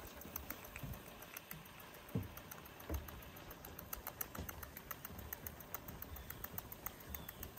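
Vintage Bing toy steam engine running, a faint, rapid, even ticking of about five clicks a second over a soft hiss, with a couple of low thumps.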